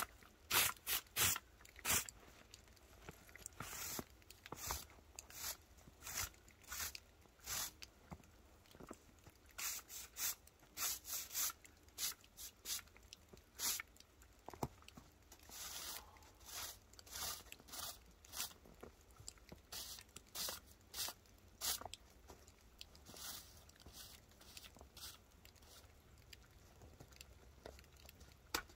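A stiff broom sweeping heavy, wet snow off miniature railway track in a run of short, crunchy strokes, one or two a second, with a few longer sweeps.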